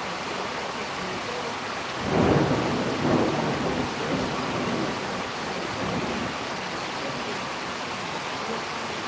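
Rainstorm: steady rain, with a low rumble swelling about two seconds in and again about a second later.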